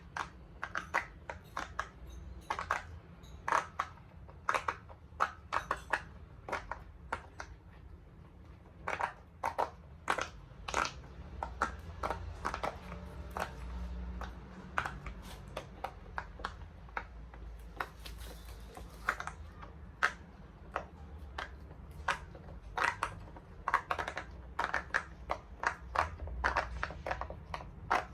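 Silicone bubbles of a large pop-it fidget toy being pressed and popped one after another, short sharp pops coming in irregular runs of several a second.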